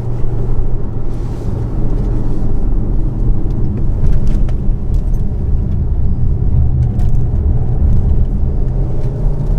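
Škoda Kodiaq RS on the move: a steady low engine and road rumble with a low hum.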